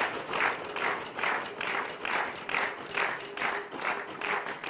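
Game-show prize wheel spinning down, its flapper clicking against the pegs at a steady rate that slows as the wheel loses speed.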